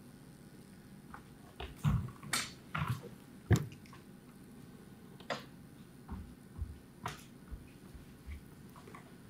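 Footsteps on a wooden stage floor with scattered knocks and clicks, loudest about two to three and a half seconds in, as performers walk on and settle onto metal-framed chairs, then softer, evenly spaced steps near the end.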